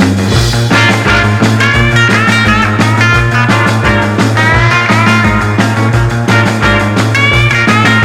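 Rock music with a steady beat of about two drum hits a second, a held bass, and high notes that slide up and down.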